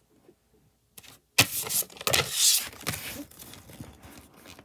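Rustling and scraping of a folded paper checklist being handled and slid across a tabletop, starting about a second and a half in and fading toward the end.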